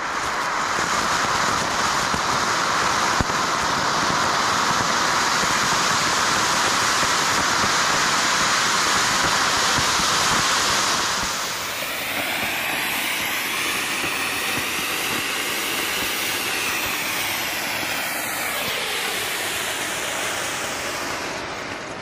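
Flower pot (anar) firework fountain burning with a loud steady hiss. About halfway through, the hiss drops a little and takes on a slow wavering sweep, rising and falling, then fades near the end.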